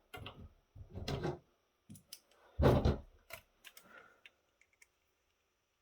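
Hands working on a disassembled 3.5-inch floppy drive's metal parts: a series of knocks and clatters, the loudest about two and a half seconds in, then a few light clicks that die away near four seconds.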